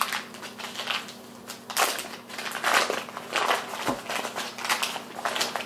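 Paper wrapper on a round of brie crinkling and rustling as it is peeled off the cheese, in several short irregular bursts.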